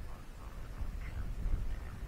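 A hand-held catfish squeaking and croaking: a string of short creaky chirps, made by rubbing its pectoral spines, over a low rumble.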